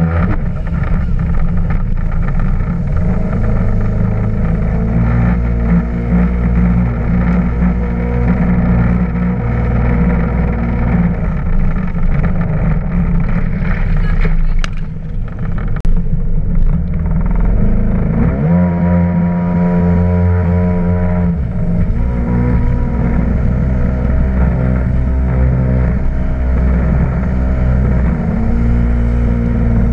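Yamaha WaveRunner jet ski engine running at speed over choppy water. The engine drops back briefly about halfway through, then its pitch rises again and holds steady.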